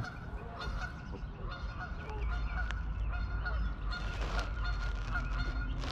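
Geese honking: a scattered series of short calls, about half a dozen, over faint steady background rumble.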